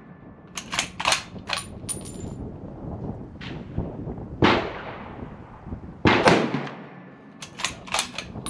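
Ruger Precision Rifle in .300 Win Mag with a muzzle brake firing: two loud shots about two seconds apart, each trailing off in a long echo, with a fainter shot a second before them. Quick runs of sharp clicks come near the start and near the end.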